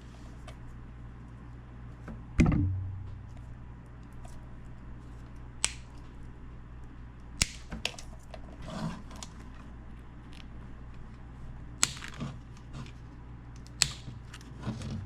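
Handling noise from work on a subwoofer's wiring: scattered sharp clicks and small taps, with one louder knock about two and a half seconds in that rings low for a moment. A steady low hum runs underneath.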